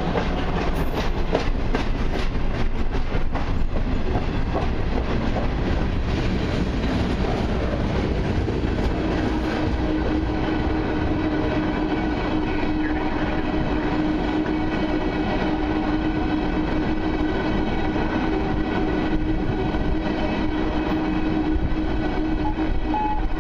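Freight cars of a long mixed freight train (autoracks, boxcars and covered hoppers) rolling slowly past close by: a steady rumble with wheels clicking over rail joints. A steady tone joins about nine seconds in.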